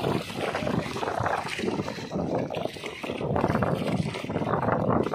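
Wind-driven choppy water lapping and splashing against a rocky shore, a rough, uneven wash of noise.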